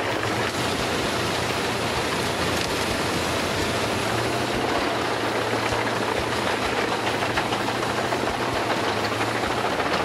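Large wood chipper running steadily: a constant engine drone beneath the dense noise of wood being chipped.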